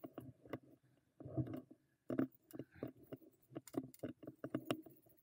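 Irregular knocks and rattles of an e-mountain bike rolling over a bumpy trail, with a brief quiet gap about two seconds in.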